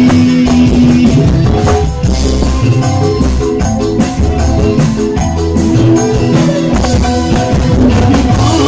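Live dangdut band playing loud amplified music, with held melody notes over a steady beat of drums and percussion.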